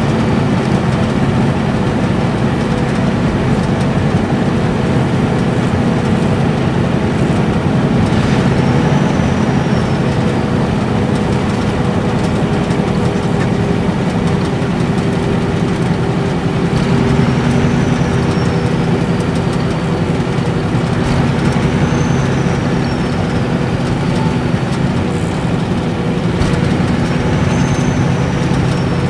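Interior running sound of a Nissan Diesel Space Arrow RA coach's inline-six turbo diesel cruising steadily at expressway speed, a low even engine hum over tyre and road noise. A faint high turbo whistle slides down in pitch four times.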